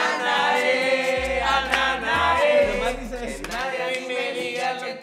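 A group of young men and women singing a song together in chorus, several voices at once and fairly loud, with low bass notes underneath at times.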